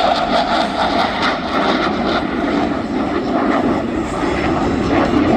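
Jet noise from Blue Angels F/A-18 Super Hornets in flight: a steady, loud rushing rumble that keeps on with no clear rise or fall.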